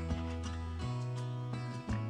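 Background music: a track with held notes over low bass notes that change about once a second.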